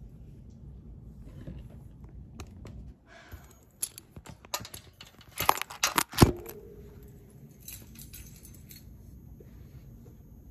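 Handling noise from the phone that is filming as it is gripped and moved: rubbing and a quick run of clicks and knocks against the microphone, the loudest just after six seconds in.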